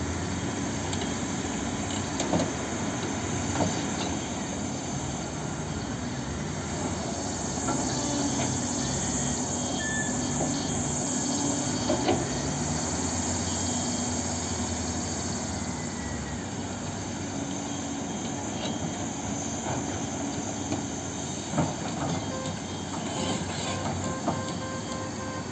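Caterpillar 324D excavator's diesel engine and hydraulics working steadily as it digs and loads a dump truck, the engine pitch shifting with the load. A few sharp knocks of bucket, rock and dirt stand out at intervals.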